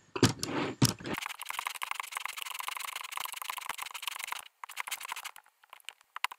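Tile mortar being hand-mixed in a plastic bucket: a tool scrapes quickly and steadily against the bucket's bottom and sides. The scraping breaks off about four and a half seconds in, then goes on as a few scattered scrapes.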